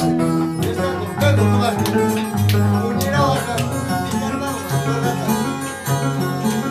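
Andean harp playing a lively tune, with plucked bass notes changing about every half second under a plucked melody.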